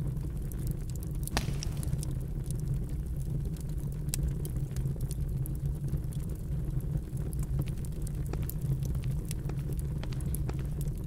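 Wood fire crackling in an open hearth: scattered sharp pops and snaps over a low, steady rumble.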